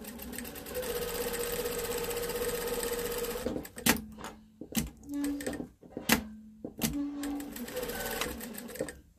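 Sewing machine stitching a seam, running steadily for about three seconds, then stopping and starting in a few short bursts with sharp clicks in between.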